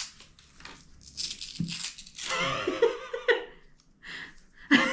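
Paper wrapper on a roll of half dollars being torn and rustled open in short scratchy strokes, with laughter in the middle and a sudden loud voice near the end.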